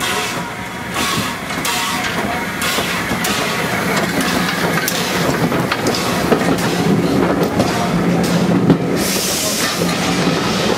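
A1X 'Terrier' class 0-6-0 tank steam locomotive No. W8 'Freshwater' moves slowly past with short, evenly spaced chuffs, then its vintage wooden-bodied carriages roll by close, wheels clicking over the rail joints. The rumble grows steadily louder.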